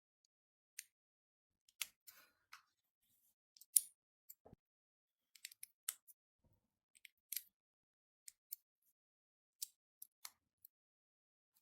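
Irregular small sharp clicks of Lego Technic plastic pieces being handled and pressed together, with one duller knock about halfway through.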